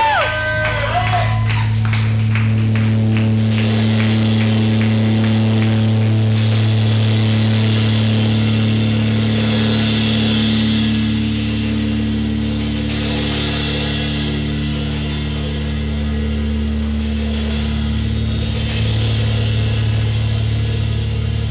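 Live improvised band playing a drone: electric bass holding steady low notes, dropping lower about three-quarters of the way through, under drums and cymbal wash. A held vocal note ends just at the start.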